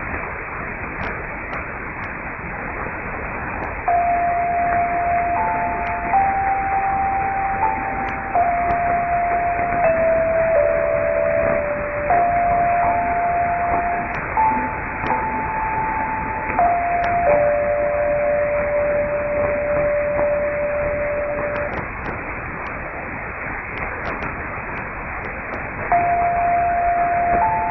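Danmarks Radio's longwave interval signal received over AM on 243 kHz: a slow tune of pure electronic tones that ends on a long low note, then starts again after a pause near the end. Under it run the steady hiss and scattered crackles of long-distance longwave reception.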